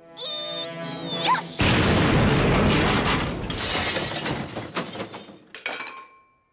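Cartoon sound effect of an old television set exploding: about a second and a half in, a sudden loud blast with crackling and shattering dies away over some four seconds. Before it there is a short run of pitched, gliding tones, and a faint steady high ringing tone is left near the end.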